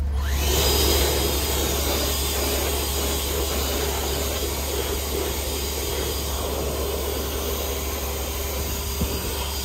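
Leaf blower running steadily at full blast, its air stream blowing dirt and nest debris out of a car's engine bay.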